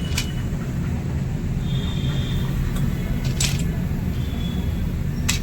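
Steady low rumble of road traffic and vehicle engines, with three sharp clicks spread across it, one near the start, one about three and a half seconds in and one near the end.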